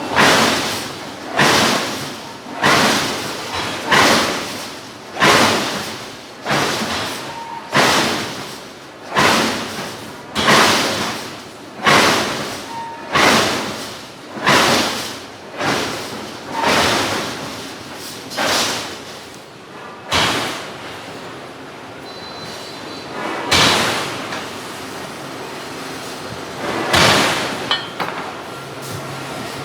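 Hydraulic forging hammer striking hot steel in a steady rhythm, about one blow every 1.3 seconds, each a sharp thud. After some seventeen blows it pauses for a few seconds, then strikes a few more spaced blows near the end.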